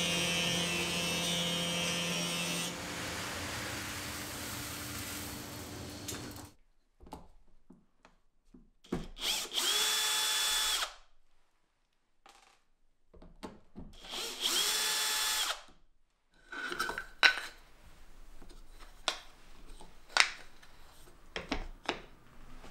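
A stationary woodworking machine runs with a board passing through it, its pitch changing about two and a half seconds in, and it stops about six and a half seconds in. Then a drill runs twice, each time spinning up to a steady whine for about two seconds as it bores holes in small hardwood strips. Near the end, wooden pieces knock and click on a workbench.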